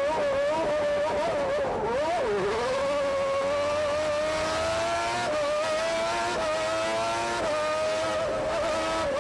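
Onboard sound of a 1992 McLaren-Honda Formula 1 car's 3.5-litre Honda V12 at racing revs. The engine note wavers and dips about two seconds in, then climbs steadily under acceleration. It breaks with short drops in pitch about halfway through, a second later and near the end: upshifts.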